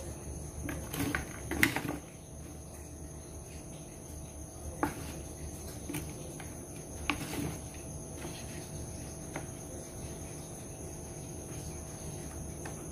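Crickets chirping in a steady, high continuous trill, with a few light clicks and taps, the loudest in the first two seconds.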